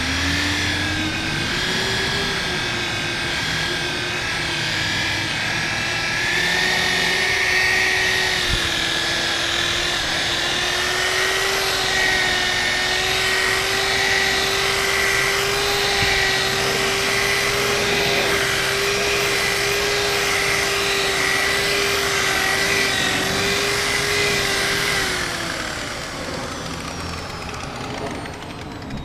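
Electric polisher running steadily with a pad buffing a carbon-fiber hood. Its motor whine climbs a little in the first couple of seconds and winds down about 25 seconds in.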